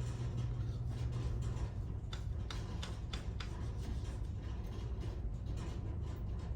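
About five light, sharp clicks in quick succession a couple of seconds in, over a steady low hum.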